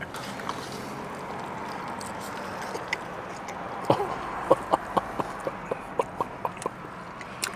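A person chewing a mouthful of cheesesteak: a run of short, wet lip-smacking clicks, a few a second, starting about four seconds in, over a steady low hum of a car cabin.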